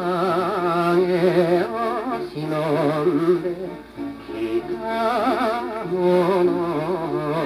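Vintage Japanese popular song playing from a 78 rpm shellac record on a turntable: a melody with deep vibrato, in phrases of held notes, over a steady accompaniment.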